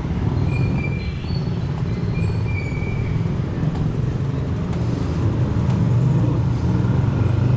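Steady low rumble of street traffic, motor vehicles running past, with a few faint short high tones over it.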